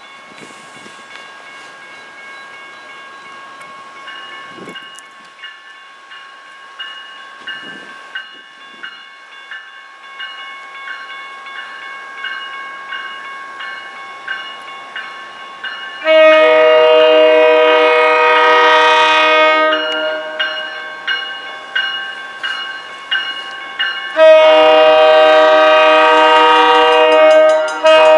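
Grade-crossing warning bells ringing with regular strikes as an approaching MBTA commuter train draws near. In the second half the train's multi-note air horn sounds two long blasts, with a third starting at the very end: the horn warning for the crossing.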